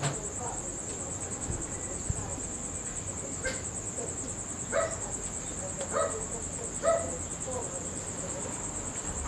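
Crickets trilling steadily in a high, unbroken pulse. Four short pitched sounds stand out in the middle, about a second apart.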